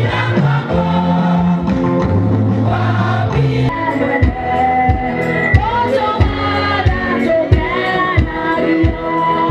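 A choir of women's voices sings a gospel song over a low bass line, with a steady beat about twice a second in the second half.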